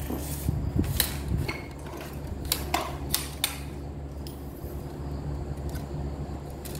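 A metal telescopic pole pruner being handled: a scatter of sharp clicks and clinks, most of them in the first half, over a steady low hum.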